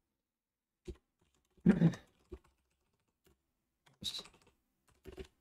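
Computer keyboard keystrokes: a handful of separate presses with pauses between them, the loudest about two seconds in.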